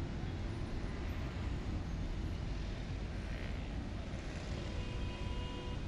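Steady outdoor ambience at a harbour quayside: an even low rumble with hiss and no distinct events. A faint steady tone comes in during the last two seconds.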